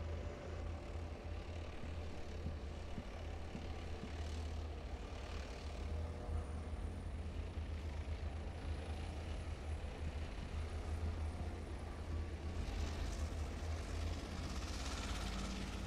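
Type 90 main battle tanks driving across the range: a steady low engine rumble, heard from a distance.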